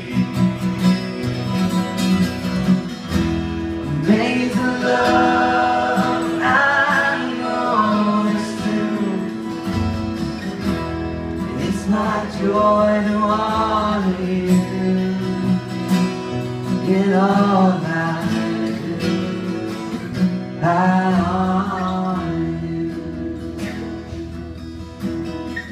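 Two acoustic guitars strumming chords under a singing voice that comes in phrases every few seconds: a live worship song.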